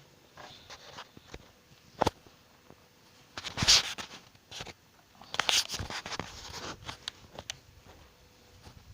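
A single sharp knock about two seconds in, then two bursts of scraping or rustling noise, the first the loudest, with a few small clicks between.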